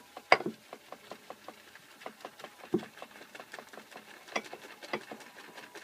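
Semi-wet boar-bristle shaving brush being swirled and worked on shaving soap to load it: a quick run of small wet clicks and swishes several times a second, with a few louder taps, as the water in the brush starts building a lather.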